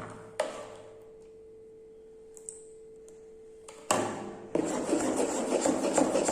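Spoon stirring borax-activated toothpaste slime in a bowl: a couple of knocks, then a few seconds of faint steady hum. From about four seconds in comes dense, continuous scraping and ticking as the mixing resumes.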